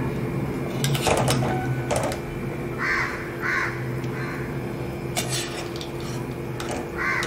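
Metal ladle scraping and knocking against a metal kadai as dry-roasted chicken is scooped out onto a plate, a few sharp clanks about a second in and again later. A bird calls twice about three seconds in, over a steady low hum.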